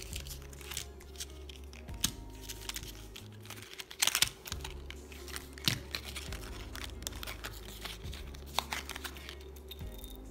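Small clicks and crinkles from handling a rose-gold metal mesh-strap magnetic watch and its card insert, with a louder cluster of clicks about four seconds in, over soft background music.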